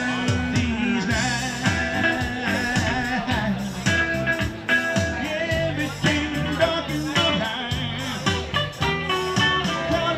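Live music: a singer accompanied by guitar, a bluesy song with plucked notes over a steady bass line.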